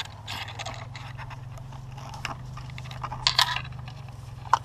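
Close rustling and scraping of clothing, gear and twigs as someone shifts position on the forest floor, with a few louder scrapes about three seconds in and a single sharp click near the end, over a steady low hum.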